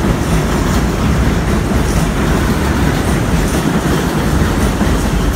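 Bombardier R62A subway train running away down the tunnel just after passing through the station: a loud, steady rumble of wheels on the rails.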